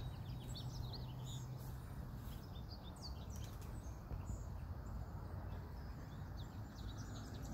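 Small songbirds chirping and twittering, many short high calls following one another, over a steady low background noise.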